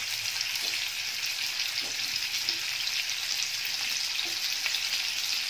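Spiny gourds (kantola) stuffed with a coconut and peanut paste sizzling as they shallow-fry in hot oil in a pan. The sizzle is steady, with a few small pops.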